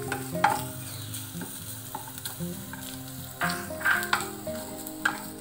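A slotted wooden spatula stirs and scrapes grated coconut, cashews and raisins frying in ghee in a pan, with a light sizzle underneath. There are several short scrapes, the clearest about three and a half to four seconds in.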